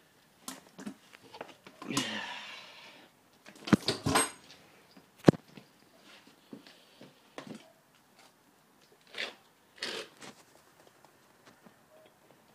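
Scattered clicks and knocks of hand tools and metal parts being handled during engine work. There is a scraping rustle of about a second early on, a sharp single click about five seconds in, and two short scrapes near the end.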